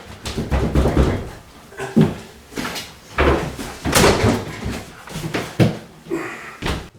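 Kitchen cabinet being pried and wrenched off the wall: a run of irregular knocks and bangs of wood.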